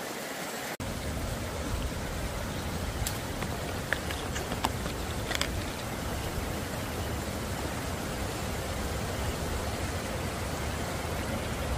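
Steady outdoor rushing noise with a deep rumble and a few faint clicks near the middle.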